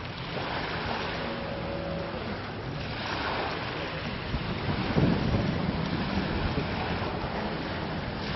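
Wind buffeting the microphone, a rumbling noise that swells about five seconds in, over the wash of the sea on the shore.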